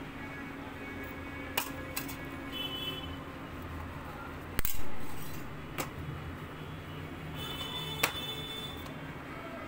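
A plastic squeeze bottle of chocolate syrup clicking and knocking against a steel plate, with one louder clank that rings briefly about halfway through, over quiet background music.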